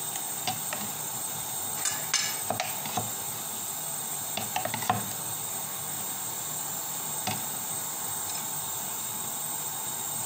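Light clicks and taps of fingers and a knife against a ceramic plate as long green chillies are split open and stuffed with chutney, over a steady hiss. The taps come in small clusters about two seconds in and again near five seconds, with one more later.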